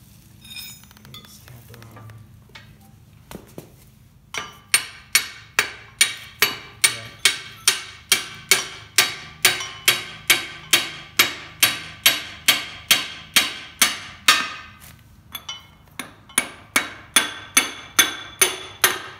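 Hammer blows on a steel pipe used as a drift, driving a part onto the keyed shaft of a hay tedder gearbox. Sharp, ringing metal-on-metal strikes come evenly at a bit over two a second, starting about four seconds in, with a short break near the end before they resume.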